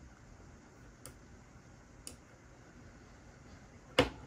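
Clicks from operating a laptop's pointer: light single clicks about a second apart, then a much louder, sharper click near the end.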